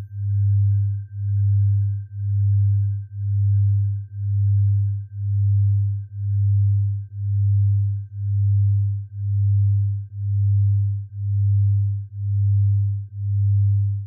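Synthesized low pure tone pulsing, swelling and fading about once a second, over a faint steady high tone: a tinnitus sound-therapy tone.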